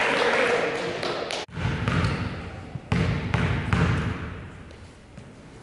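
Basketball bouncing on a gym floor, several knocks under half a second to a second apart, over the murmur of a gym crowd. The sound cuts out abruptly for a moment about a second and a half in.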